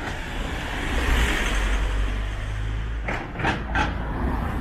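A motor vehicle passing close by: a low engine rumble with tyre noise that swells to its loudest about a second or two in. A little after three seconds in come three short sharp sounds.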